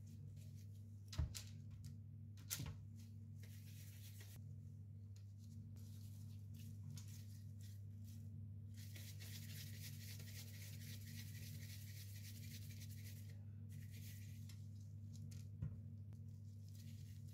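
Soft rubbing and rustling of disposable-gloved hands rolling raw minced meat into meatballs, loudest for a few seconds in the middle, with a couple of light knocks early on and one near the end over a steady low hum.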